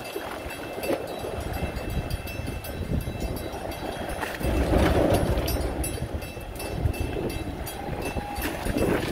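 A low, steady motor rumble with wind noise on the microphone, swelling about halfway through and again near the end.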